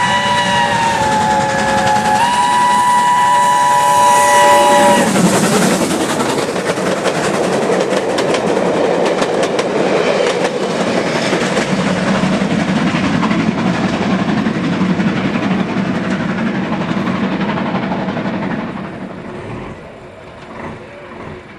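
Steam locomotive's whistle sounded in one long chord-like blast, dipping briefly in pitch and coming back up, as the engine approaches. The locomotive and its train of vans then pass close by, wheels clattering over the rail joints, and the noise fades near the end.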